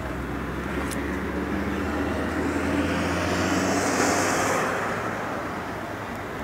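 A passing vehicle's noise swells to a peak about four seconds in and fades, over a steady low rumble.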